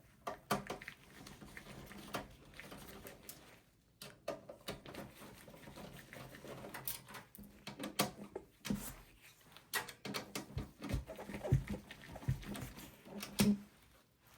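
Phillips screwdriver removing the screws at the back of a Dell OptiPlex small-form-factor power supply: irregular clicks, taps and short scrapes of the bit and screws against the computer case, getting busier and louder about halfway through.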